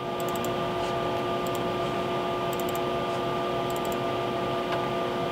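Steady equipment hum with several held tones, and small clusters of light clicks every second or so, like a computer mouse being clicked.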